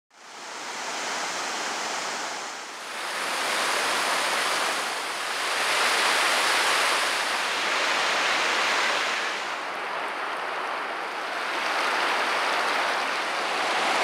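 Water rushing and splashing over rocks in a shallow river cascade: a steady rush that fades in at the start, its loudness rising and easing a little every few seconds.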